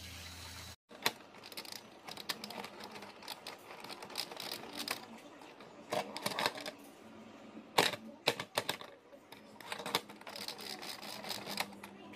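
A steady hum of a battery toy train cuts off about a second in. Then come irregular sharp clicks and clacks of hard plastic buttons and parts on a dome-topped children's activity toy being pressed by hand.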